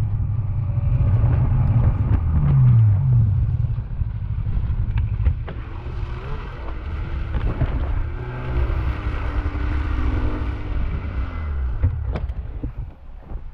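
Snowmobile engine running, its pitch rising and falling twice in the first few seconds, then settling lower and getting quieter near the end, with a few sharp knocks.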